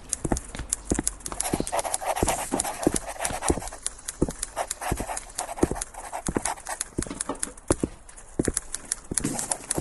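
Irregular sharp knocks or clicks, several a second, like hoofbeats or hard steps, over a soft hiss, with a brief stretch of breathy rushing noise about two to three seconds in.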